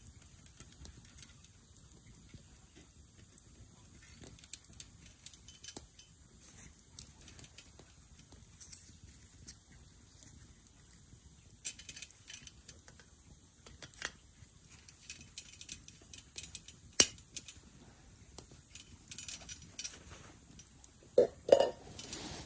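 Scattered light clinks and taps of camp cookware and utensils, with one sharp click about two thirds of the way through and a few louder ringing knocks near the end.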